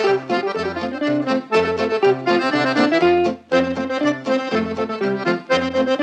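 Accordion playing a quick tune over a pulsing bass line of alternating low notes.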